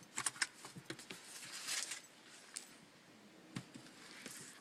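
Scattered light clicks and taps with a short rustle about two seconds in, from a motorcycle helmet and its plastic packaging being handled.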